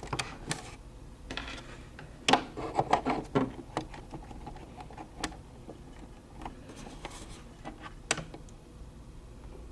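Scattered small clicks, taps and light scraping as the thread cutter mechanism of a Brother SE400 embroidery machine is handled and reset by hand, with a quick run of clicks about two to three and a half seconds in.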